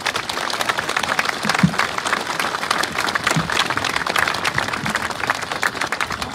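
Crowd applauding: many people clapping steadily in the open air.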